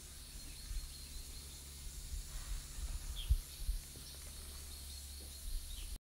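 Outdoor ambience: a low rumble with a few bumps on the microphone, and a couple of short, faint bird chirps, one about three seconds in and one near the end.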